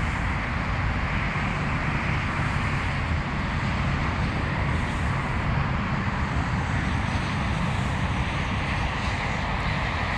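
Steady road traffic noise: a constant low rumble of vehicles that does not rise or fall.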